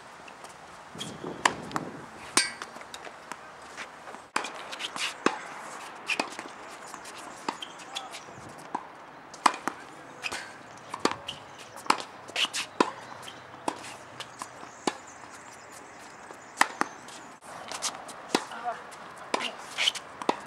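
Tennis rally on a hard court: sharp pops of racquets striking the ball and the ball bouncing, coming every second or so.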